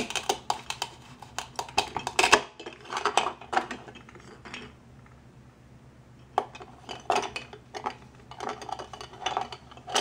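Plastic toy knife cutting through a Velcro-joined toy mango: a run of rasping Velcro tearing and plastic clicks against a plastic cutting board. After a pause of about two seconds around the middle, more plastic clicks and knocks as the halves and the knife are set down on the board.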